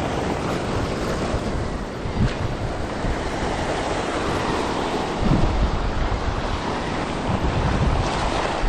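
Ocean surf breaking and washing over a rocky shore, with wind buffeting the microphone; the low rumble surges about five seconds in.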